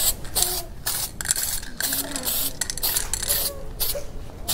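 Aerosol can of dashboard trim coating hissing in several short spray bursts as a second coat goes onto a plastic mirror housing. The bursts stop about three and a half seconds in.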